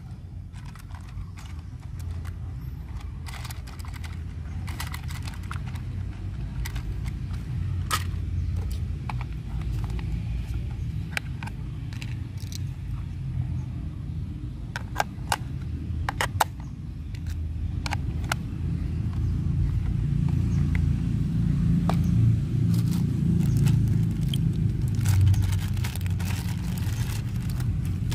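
Handling noise from a plastic toy RC rock crawler and its transmitter: scattered clicks, taps and scrapes as AA batteries are fitted into the transmitter and the car's battery lead is handled. Under it runs a steady low rumble that grows louder in the last third.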